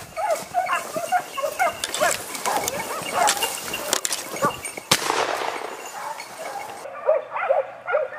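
A pack of hunting hounds baying and yelping in quick, overlapping calls while chasing a wild boar. There is a single sharp crack about five seconds in.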